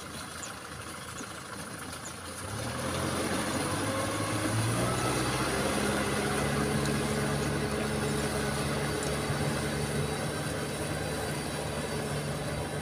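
Kubota tractor's diesel engine picking up speed about two and a half seconds in, its pitch rising for a couple of seconds, then running steadily while driving a rotary tiller through flooded paddy mud.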